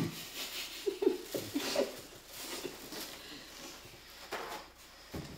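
Short muffled vocal noises from a mouth stuffed with marshmallows about a second in, then rustling of a plastic bag and a paper towel being torn from its roll.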